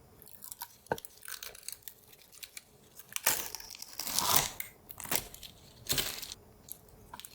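Packaging being torn open and crinkled, with small clicks and taps of handling. There are a few bursts of rustling, the longest and loudest about three to four and a half seconds in, and another about six seconds in.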